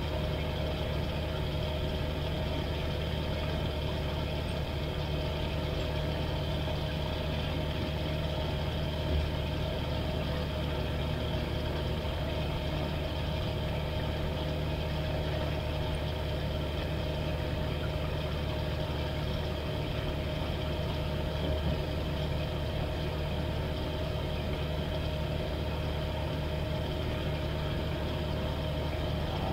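Flight Design CTSW light-sport plane's Rotax 912 engine and propeller running steadily at low taxi power.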